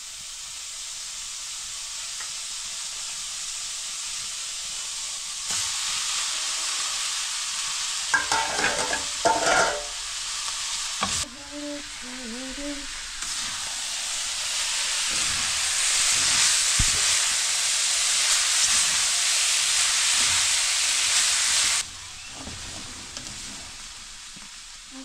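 Food sizzling as it fries in a pan and is stirred, the sizzle swelling louder and stopping suddenly near the end. A brief clatter comes about eight seconds in.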